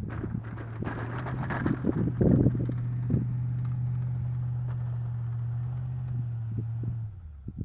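A steady, even-pitched motor hum that cuts off sharply near the end, with wind buffeting and thumps on the microphone during the first few seconds.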